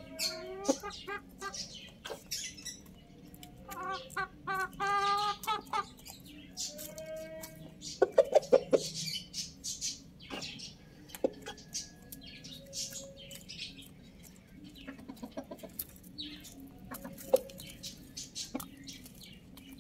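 Chickens clucking and pecking at feed in a clay dish: a quick run of clucking calls about four seconds in, a shorter call near seven seconds, and scattered sharp pecks and knocks, loudest in a quick series of about half a dozen around eight seconds in.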